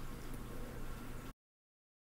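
Room tone: a faint steady hiss with a low hum, which cuts off to dead silence a little over a second in.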